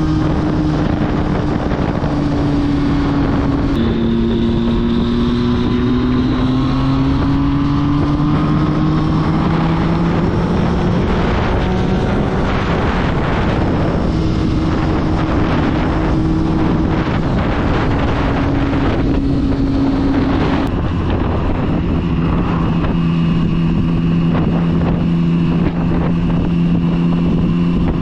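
Motorcycle engine running steadily at road speed, with wind rushing over the microphone. The engine note shifts suddenly about four seconds in, then climbs slowly.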